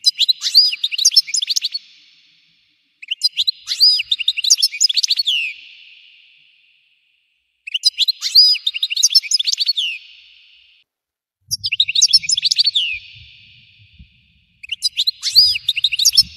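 European goldfinch song: five bursts of rapid twittering and trilling, each two to three seconds long, separated by short pauses, with nearly the same phrase each time. It is the fast, intense 'tafjeer' (explosion) style of goldfinch song.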